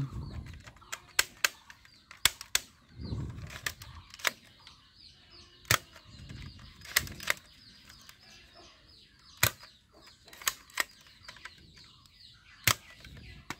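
A toy shotgun clicking as it is worked: about a dozen sharp, irregular clicks with a couple of duller handling thumps. Birds chirp faintly in the background.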